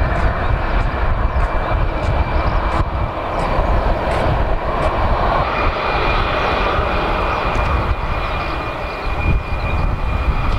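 Airbus A320-211's CFM56 jet engines running at taxi power as the airliner taxis. The sound is a steady high whine over a low rumble, and the whine grows stronger about halfway through.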